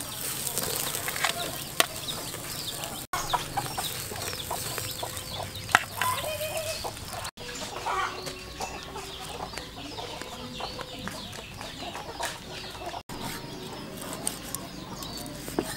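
Chickens clucking and small birds chirping in the background, with scattered sharp knocks from tongs and a cleaver at work. The sound drops out for an instant three times at edits.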